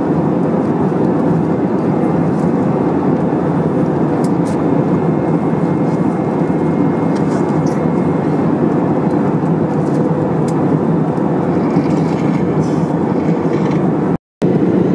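Steady in-flight cabin noise of an Airbus A319-100 heard from a seat over the wing: the even rush of the turbofan engines and the airflow past the fuselage. The noise cuts out for a split second near the end.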